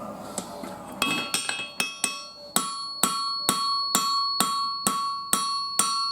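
Forging hammer striking hot 5160 steel on an anvil, starting about a second in and going on at about three blows a second, each blow leaving a bright ring. The blows are drawing the knife's handle down to about a quarter inch thick.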